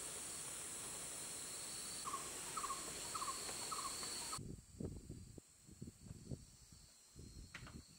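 Steady forest insect drone with a high hiss, and a run of five short chirps about two seconds in. The ambience cuts off abruptly just past halfway, giving way to soft, irregular thumps and knocks of footsteps in flip-flops on a log-and-bamboo platform, with one sharp click near the end.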